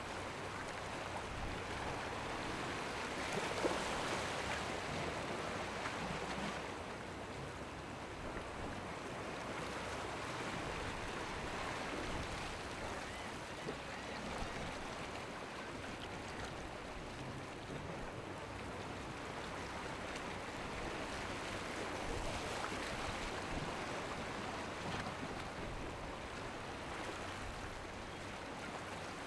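Steady rush of rough, choppy waves and a boat's wake splashing, with wind. It swells louder a few seconds in and again a little past the middle.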